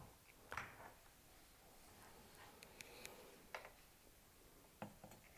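Near silence, with a few faint clicks and taps as a low-profile CPU cooler is handled and set down onto a motherboard.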